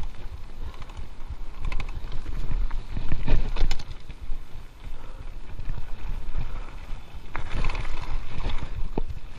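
Giant Stance full-suspension mountain bike rolling down a rocky dirt trail: tyres crunching over gravel and the bike rattling and clacking over bumps, loudest about three seconds in, with wind rumbling on the microphone.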